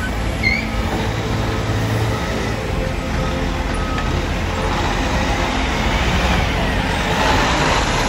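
Diesel engine of a Peterbilt semi truck pulling an end-dump trailer as it drives past, its noise growing louder near the end as it comes close.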